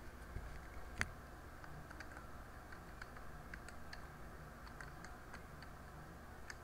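Computer keyboard being typed on: faint, scattered key clicks, with one louder click about a second in. A low steady hum runs underneath.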